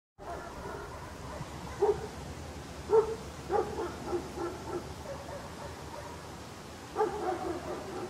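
Dog barking: single barks about two and three seconds in, then a quick run of smaller yips, and another bark at about seven seconds followed by softer ones, over a steady background hiss.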